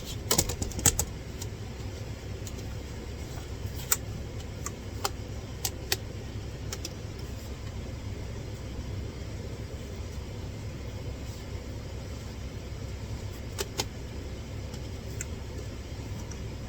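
Hard plastic parts clicking and knocking as air-conditioner vent fittings are twisted and pushed onto a window mount and keep popping off, over a steady low hum. The clicks come in a quick cluster at the start, then sparse single clicks.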